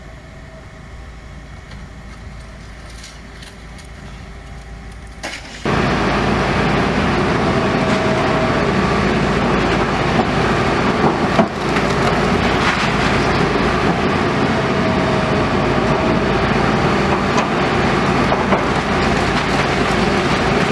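House demolition by a heavy machine: a diesel engine running with crunching and splintering of wood and rubble. Fairly quiet at first, then much louder and denser from about six seconds in.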